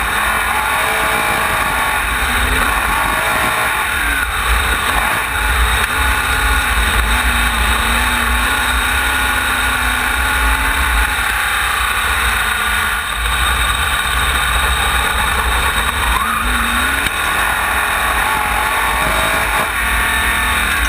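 Onboard sound of a wingless sprint car's V8 engine at race speed, its revs repeatedly rising and falling through the laps, over a heavy rumble of wind and vibration on the camera.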